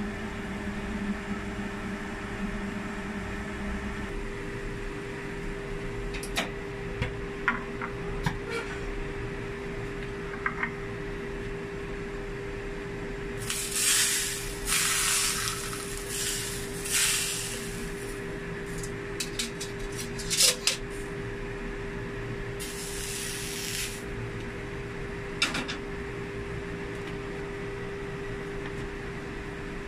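Hot cooking oil poured from a wok onto steamed pompano sizzles in a few loud hissing bursts, the longest lasting a few seconds, with another short sizzle later. Light clicks and knocks of the pan and dish come in between, over a steady hum.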